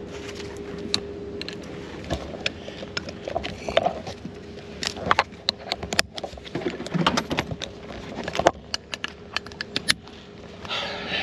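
Metal latch tongues of a Schroth six-point racing harness clicking and rattling against its rotary cam-lock buckle as they are pushed in by hand: a run of sharp, irregular clicks.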